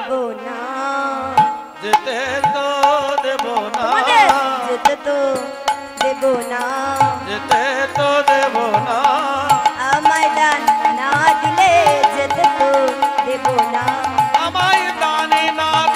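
Bengali devotional kirtan music: hand-drum strokes over a steady held drone, with a melodic line that bends and wavers in pitch.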